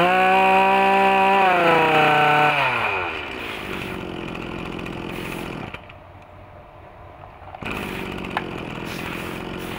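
Komatsu Zenoah BC2600 26cc two-stroke brush cutter engine revving high, then dropping back to a steady idle about three seconds in.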